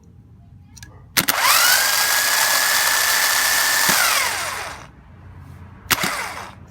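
A small electric motor spins up to a steady high whine, holds it for about two and a half seconds, then winds down, followed by a second brief burst about a second later.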